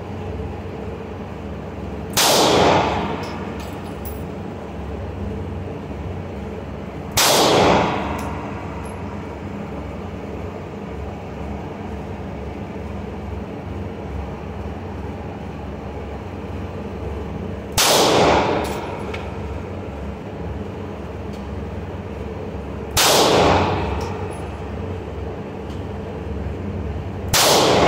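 Five 9mm pistol shots fired slowly, several seconds apart, each ringing off the concrete walls of an indoor range booth. A steady background hum runs between them.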